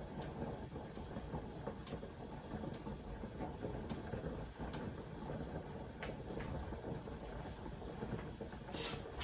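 Quiet kitchen background noise with a few faint scattered clicks.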